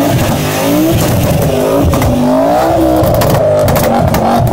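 A car engine revved hard over and over, its pitch rising and falling several times, with crackling pops from the exhaust in the second half.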